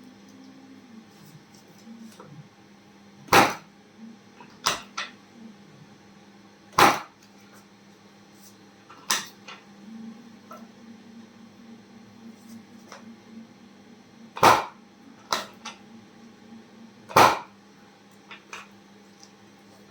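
A series of sharp cracks and thumps from chiropractic adjustments, about eight over the stretch, irregularly spaced, with four that are much louder than the rest.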